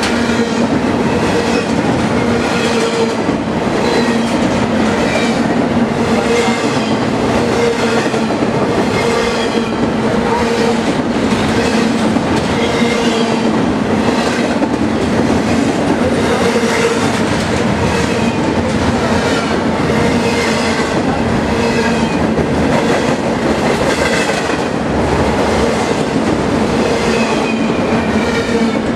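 BNSF freight train of empty intermodal well cars (a 'bare table' train) passing close at speed: continuous loud steel wheel-on-rail noise with a steady low ringing hum and a regular clickety-clack of wheels over the rail joints.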